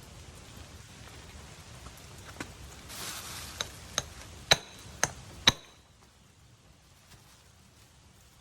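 Krate Tactical OTF knife's double-action mechanism snapping: about six sharp metallic clicks with a brief ringing, the loudest three coming in quick succession about half a second apart. A steady hiss stops just after the last click.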